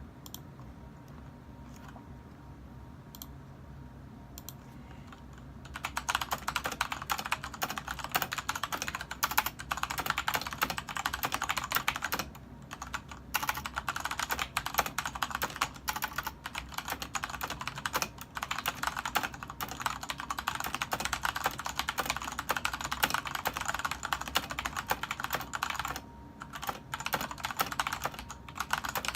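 Typing on a LEOBOG K23 mechanical keyboard with red linear switches. A few isolated key presses give way, about six seconds in, to fast continuous typing, broken by two brief pauses.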